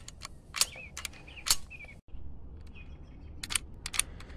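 Sharp clicks and clacks from handling a Winchester Model 63 .22LR rifle, in two quick clusters of several clicks each, with short chirps after the two loudest clicks.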